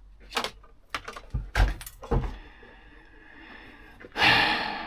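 Handling noises: a few knocks and clicks in the first two seconds, then a louder rustling scrape about four seconds in that fades away.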